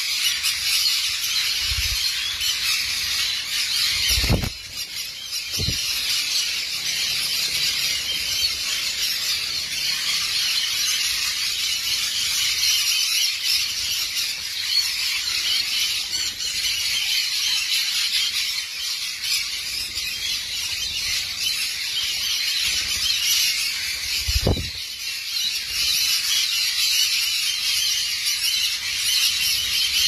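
A flock of green-cheeked conures calling continuously: many shrill, high-pitched squeals and chatters overlapping at a steady level.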